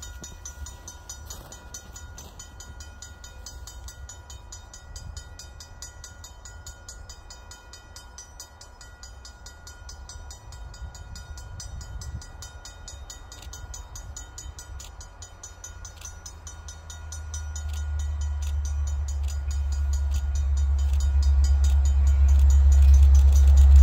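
Three EMD SD75I diesel locomotives with 16-cylinder two-stroke engines approaching at the head of a freight train, a low rumble that grows steadily louder over the last several seconds as they near.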